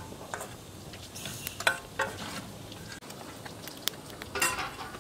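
Scattered clinks and scrapes of a metal spoon against a steel bowl as a block of solid cooking fat is scraped into a hot frying pan, over a low sizzle.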